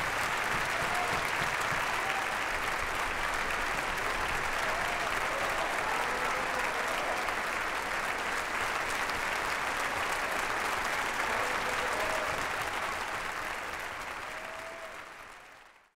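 Concert-hall audience and orchestra applauding, a dense steady clapping that fades out over the last few seconds.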